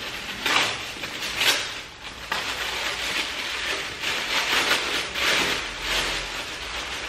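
Paper wrapping and tissue paper crinkling and rustling in irregular bursts as a parcel item is unwrapped by hand, over a box of shredded-paper packing.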